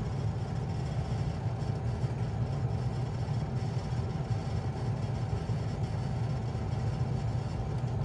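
Bard 3-ton wall-hung heat pump running in cooling mode: a steady low hum from the compressor and condenser fan, with a faint steady whine above it.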